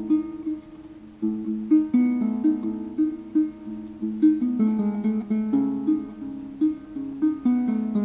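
Ngoni, a West African harp-lute with a calabash gourd body, being plucked: a flowing melodic line of single notes, several a second, with a brief lull about a second in.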